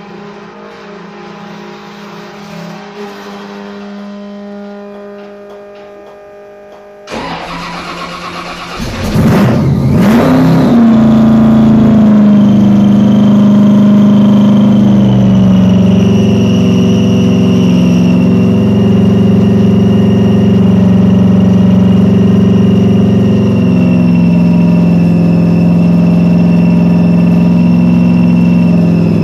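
A steady hum at first. Then, about seven seconds in, the 1969 Corvette Stingray's 427 big-block V8, topped by a Weiand supercharger with two Holley carburettors, cranks for a couple of seconds and fires on a cold start. It settles into a loud, steady fast idle that drops slightly in pitch a few seconds after catching.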